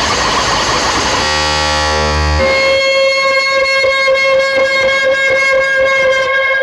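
Loud electronic music through a DJ loudspeaker system during a sound check: a noisy rush, then a deep bass note about a second in, then a long steady horn-like synth tone held from about two and a half seconds in.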